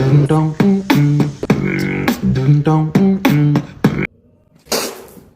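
Vocal beatboxing: sharp mouth-made drum hits over a hummed, pitched bass line. It stops abruptly about four seconds in, and one short hiss-like burst follows near the end.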